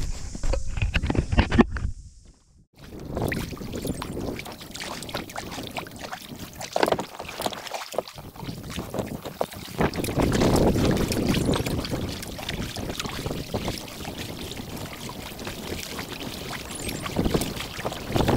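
Sea kayak under way: paddle strokes and water splashing and lapping against the hull, in irregular strokes, louder from about halfway through. The sound drops out briefly about two seconds in.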